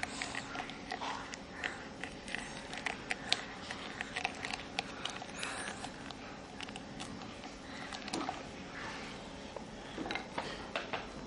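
Scattered light clicks and taps, several a second, from a toddler handling a plastic and wooden toy, with soft rustling and faint breathing sounds over a low steady hum.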